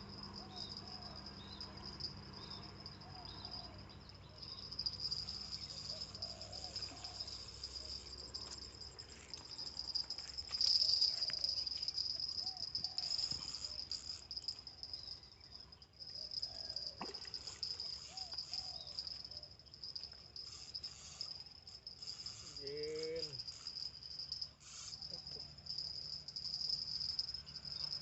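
Steady high-pitched chorus of crickets and other insects, with a few faint short calls beneath it and one louder brief pitched call about 23 seconds in.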